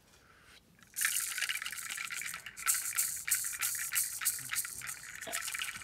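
Handheld ceremonial rattle shaken rapidly and unevenly in a long run of dense clicking strokes, starting about a second in.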